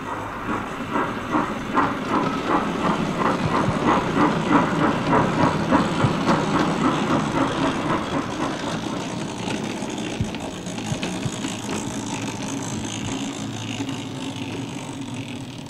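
O gauge model shunting locomotive running along the track, a rhythmic mechanical clatter with a quick regular beat that is loudest about halfway through and then eases off.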